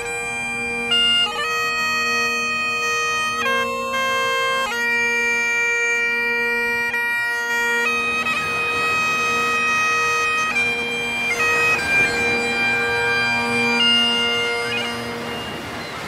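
Highland bagpipes playing a slow tune of long held notes over their steady drones. About halfway through, a rush of surf comes up behind the pipes, and the piping fades near the end.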